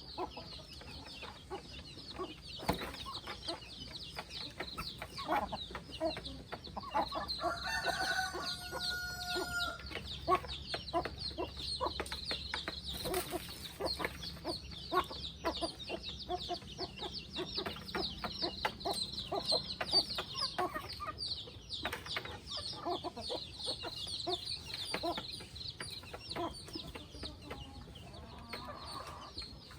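A flock of free-range chickens clucking steadily, with a rooster crowing once about eight seconds in.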